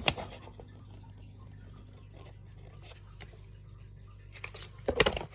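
Faint handling sounds from unboxing a product: a few soft taps and rustles over a low steady room hum, then a short burst of louder rustling and knocks about four and a half seconds in.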